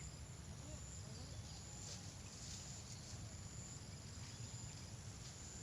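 Insects trilling in a steady high tone, over a constant low rumble.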